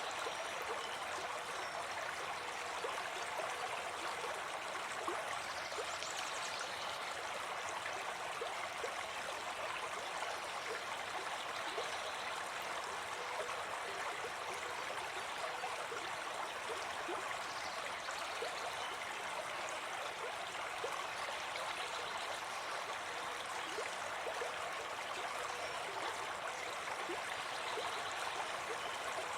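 Forest stream flowing steadily: a constant, even rush of running water.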